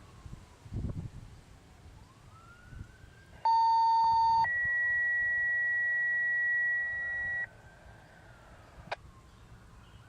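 American Signal T-128 outdoor warning siren sounding its steady Alert signal, faint, its pitch drifting down and up. About three and a half seconds in, much louder radio paging tones from a scanner cut in over it: a lower steady tone for about a second, then a higher one for about three seconds, stopping suddenly.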